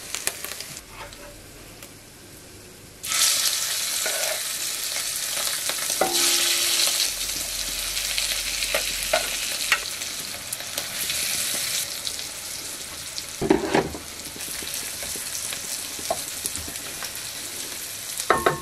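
Sautéed vegetables being spooned into a frying pan of hot sausage oil. A loud sizzle starts suddenly about three seconds in and eases off toward the end, with a spoon scraping and knocking against the pans.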